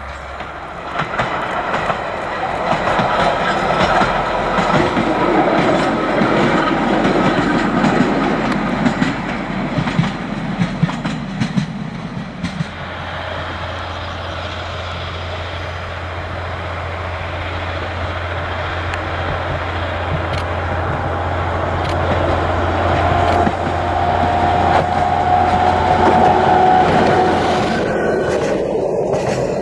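Narrow-gauge diesel train running past, engine sound and wheels clicking over the rail joints, growing louder as it approaches and passes close near the end. A steady high tone rises out of it for a few seconds as it draws near.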